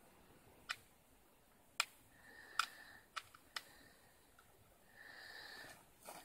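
A few sharp clicks: three about a second apart, then two fainter ones in quick succession.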